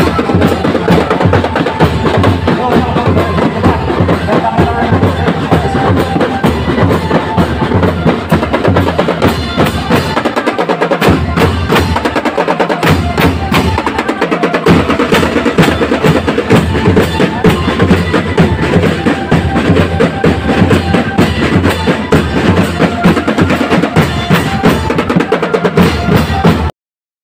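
Marching drum band of bass and snare drums playing a fast, continuous beat with drum rolls. The deep drum drops out briefly twice near the middle, and the sound cuts off suddenly near the end.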